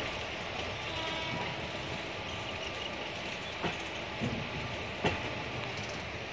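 Passenger train coach rolling along the track, heard from its open doorway: a steady running rumble and rush, with a few sharp clacks as the wheels pass over rail joints.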